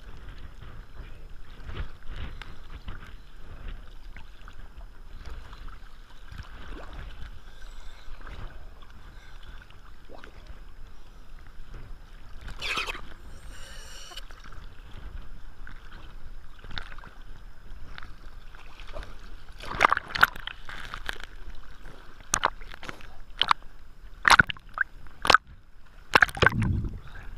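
Sea water sloshing and slapping around a camera riding at the surface among small waves, over a steady low rumble. A louder splash comes about halfway through, and sharp slaps and splashes come thick and fast in the last several seconds as the camera dips in and out of the water.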